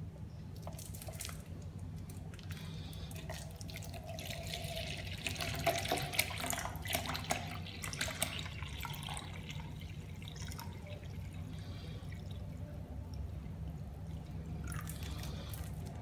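Toilet cleaning acid poured from a plastic bottle into a plastic mug, splashing and gurgling, loudest from about four to eight seconds in. A steady low hum runs underneath.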